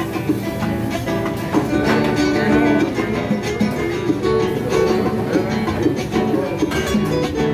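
Latin American music played on plucked acoustic guitars, running steadily without a break.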